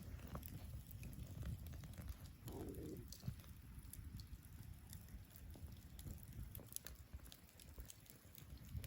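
Wood fire crackling: scattered small snaps and pops over a low rumble.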